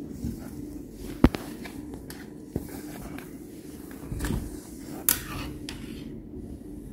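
A broken plastic clothes hanger with a sock on its end being worked under a sofa and along a tiled floor: a sharp knock about a second in, then a few lighter knocks, a short rumble and a brief scuff as it is pulled out, over a faint steady hum.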